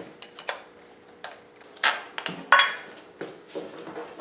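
Hand tools and engine parts clinking and clanking against each other during the teardown of a Chevy 350 small-block V8, a string of sharp metallic knocks, one of them ringing briefly.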